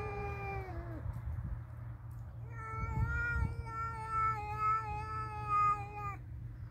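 Two domestic cats yowling in a standoff: a long drawn-out call falls in pitch and ends about a second in, then after a short gap another long, slightly wavering yowl holds for about three and a half seconds.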